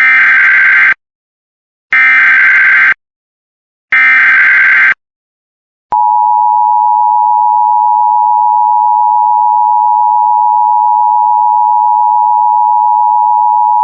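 Emergency Alert System tones. Three one-second bursts of SAME digital header data, a second apart, come first. About six seconds in, the steady two-tone attention signal begins and holds for about eight seconds.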